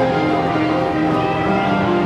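Instrumental background music with held, changing notes.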